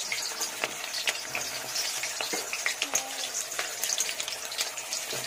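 Sliced onions frying in hot oil in a steel kadai: a steady sizzle with many small crackles and pops.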